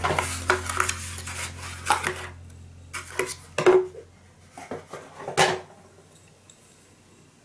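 A small cardboard box being slid open and rustled, then a small ceramic dish set down on a table with a sharp clink and picked up and handled, several knocks and scrapes. A low steady hum runs underneath and fades out near the end.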